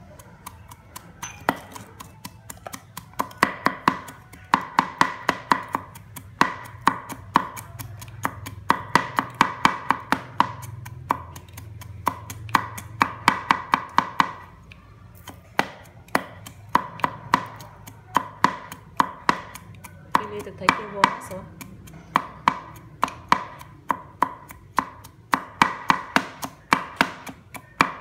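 Knife chopping food rapidly on a cutting board: fast runs of sharp knocks, several a second, with short pauses between runs.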